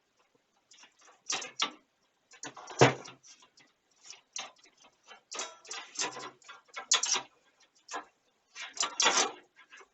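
Irregular clicks, taps and rattles of small hard parts being handled and fitted into a computer case, with one sharper knock about three seconds in.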